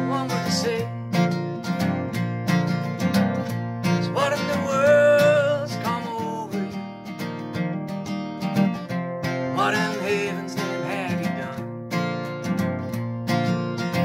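Taylor acoustic guitar strummed steadily with a capo on, joined by a man singing two phrases, about four and ten seconds in.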